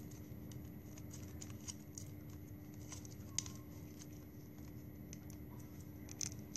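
Scissors cutting plastic drinking straws, with faint scattered clicks and snips of the straws being handled and a few sharper clicks near the end, over a steady low hum.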